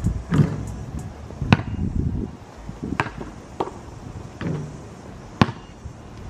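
A basketball bouncing on an asphalt court and striking the hoop: several sharp thuds about a second apart, the loudest near the end.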